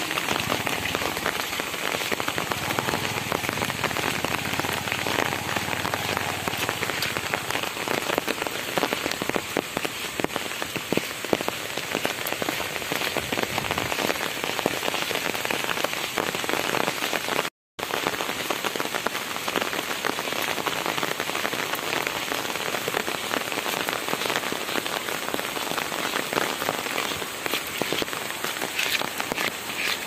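Steady heavy rain falling on an umbrella and the wet road, a dense, even hiss of drops full of fine ticks. The sound cuts out for an instant a little past halfway.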